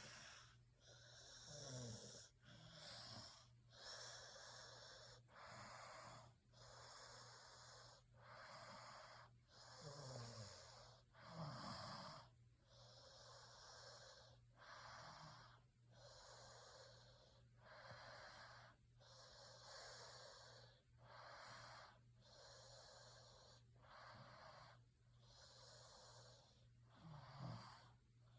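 Faint snoring: rough, noisy breaths in a steady rhythm, about one a second, a few of them ending in a short falling low tone.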